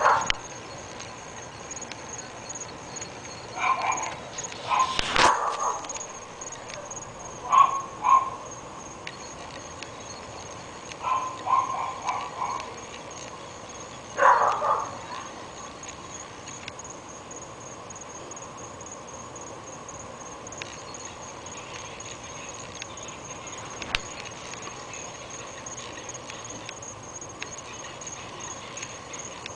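Dogs barking in short bursts, about five bouts over the first fifteen seconds, then stopping; a sharp knock sounds during the second bout.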